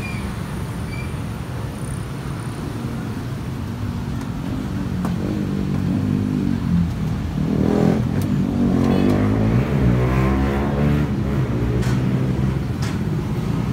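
Motor vehicle engine running close by over a steady low rumble, growing louder with a wavering pitch for a few seconds past the middle.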